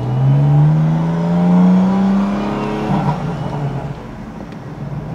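A BMW M4 CS's turbocharged straight-six, fitted with aftermarket downpipes and a full exhaust, accelerating past: the revs climb steadily through one gear for about three seconds after a shift. Then the note breaks off into a rougher, crackling sound as the car lifts off and drives away.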